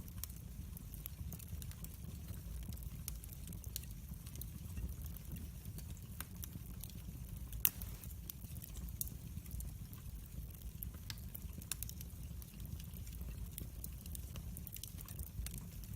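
Wood fire burning in a fireplace, with a low steady rumble and irregular small crackles and pops throughout, one louder pop about halfway through.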